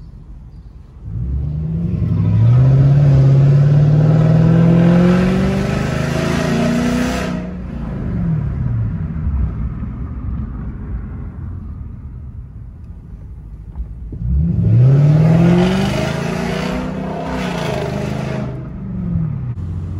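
Lexus LS400's V8 engine heard from inside the cabin, accelerating hard twice: each time the engine note climbs in pitch for several seconds, then drops away as the throttle comes off.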